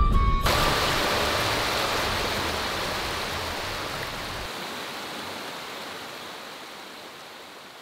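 Rushing water of a shallow stream tumbling over rocks: a steady, even hiss that fades gradually toward the end.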